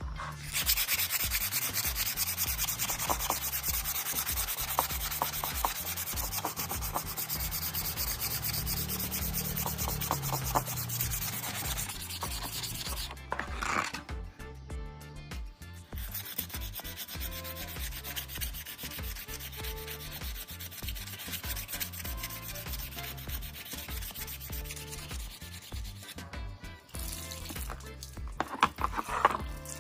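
Sanding on a repaired plastic car bumper: a steady scraping that pauses briefly about 13 seconds in, resumes more quietly, and stops again near the end.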